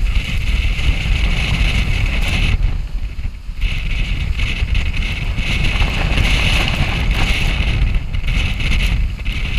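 Wind rumbling on the microphone over the rush of water and spray along the hull of a Class 40 racing sailboat heeled hard and sailing fast in a storm, with a brief lull about three seconds in.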